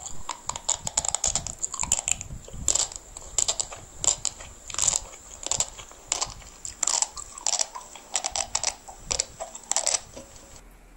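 Close-miked eating of spicy instant noodles with cheese: slurping strands in and chewing, a quick irregular run of sharp mouth smacks and slurps that stops shortly before the end.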